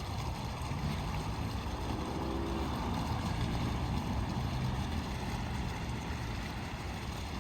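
Fire truck engine running with a steady low rumble under a rushing noise; its pitch rises and falls briefly between about two and five seconds in.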